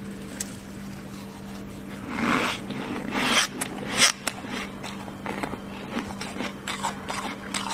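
Fingers scraping and crumbling thick freezer frost: two scratchy scrapes about two and three seconds in, then a sharp crack and a run of small crunches and crackles.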